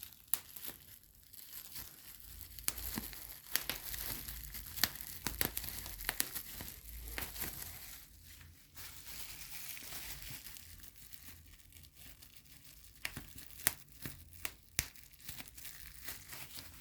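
Packaging being handled and unwrapped: crinkling and tearing with many sharp crackles, busiest in the first half, with a few louder snaps near the end.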